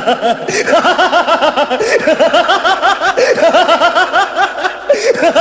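Several voices laughing together in quick rhythmic bursts of snickering and giggling, a laughter sound effect.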